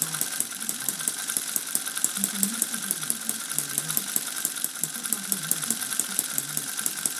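Miniature Little Angel hit-and-miss model engine (half-inch bore, Hall-effect spark ignition, lamp-oil fuel) running steadily, a fast, even run of sharp exhaust beats. With its hit-and-miss governor not yet connected, it fires on every cycle instead of coasting between firings.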